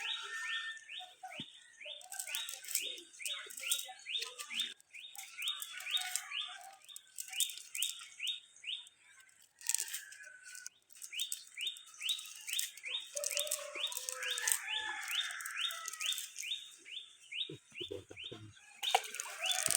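Small birds chirping continuously: a rapid run of short, rising chirps, several a second, with a few lower calls mixed in.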